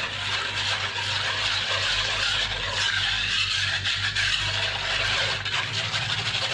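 Quick hand whisking of a thin, foamy milk, sugar and yeast mixture in a wooden bowl: steady swishing and sloshing of the liquid, over a steady low hum.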